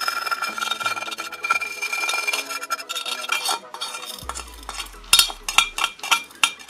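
A steel kitchen knife scraping dried fig seeds off a ceramic plate, a continuous scratchy rasp of blade on glaze, with a few sharper clicks of the blade against the plate about five seconds in.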